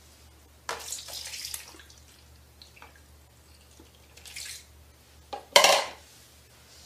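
Bathwater splashing as a cat is held and washed in a tub: a splash about a second in, a smaller one after four seconds, and the loudest just before six seconds.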